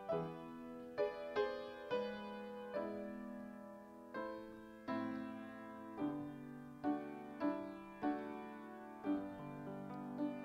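Solo piano playing a slow, gentle offertory piece: notes and chords struck about once or twice a second, each ringing and fading before the next.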